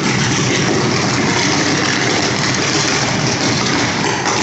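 Short-circuited overhead power line arcing: a loud, continuous buzzing and crackling from the electric arc as it throws off sparks.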